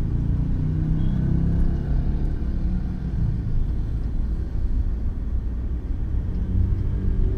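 Steady low rumble of a car's engine and tyres heard from inside the cabin while it drives along a road.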